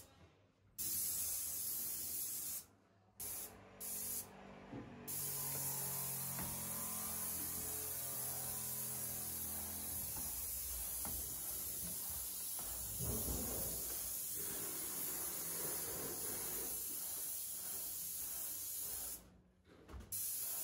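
Paint spray gun spraying with a steady high hiss, switched on and off by the trigger. There is a burst in the first two seconds, then two short bursts, then one long unbroken spray of about fourteen seconds, and a last brief burst near the end.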